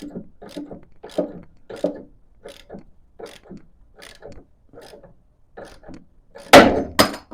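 Track rod end separator being wound tight with a spanner, in short clicking strokes about twice a second, then near the end a loud crack and a second knock as the tapered track rod end pin lets go of the steering arm.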